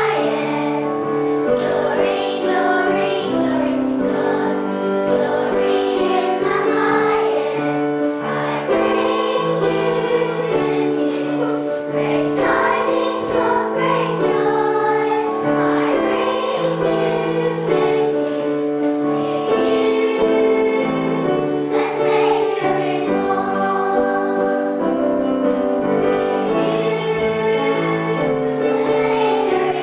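Children's choir singing a song together, with sustained notes over a steady accompaniment.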